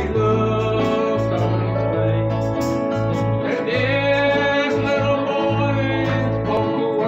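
A small acoustic country band playing: several acoustic guitars strummed together over deep, changing bass notes, with a voice singing.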